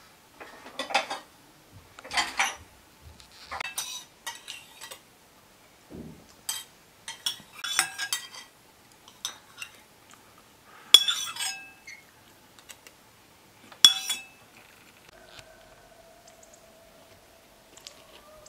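Tableware clinking on a round metal tray table as a meal is served: scattered sharp clinks and knocks of spoons, plates and glasses, the two loudest ringing briefly about eleven and fourteen seconds in.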